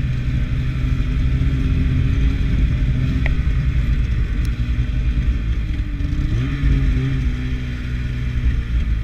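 Snowmobile engine running under throttle while the sled is ridden through snow, its pitch rising and falling with the throttle, with a dip and a rev back up about six and a half seconds in.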